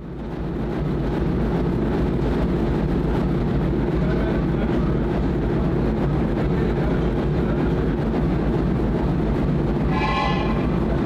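Steam locomotive at close range: a steady rush of steam noise over a low rumble, with a short whistle of about a second near the end.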